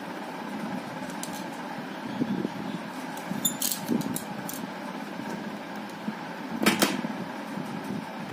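Light plastic clicks from handling a full-face motorcycle helmet and its visor, with one sharper clatter about two-thirds of the way through, over a steady fan-like room hum.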